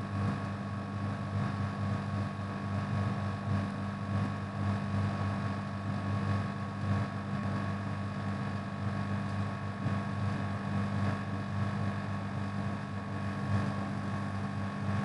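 A steady low hum with a light hiss behind it, unchanging throughout, with no speech.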